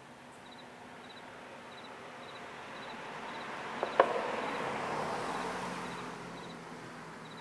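Crickets chirping steadily, short triple-pulsed chirps about twice a second, while a passing car's noise swells to a peak past the middle and fades away. Two sharp clicks come just before the peak.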